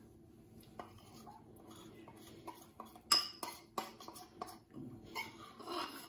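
Cutlery and crockery clinking: a metal table knife tapping and scraping against a ceramic bowl and plate while scooping and spreading icing, a run of sharp clinks with the loudest about three seconds in, then scraping near the end.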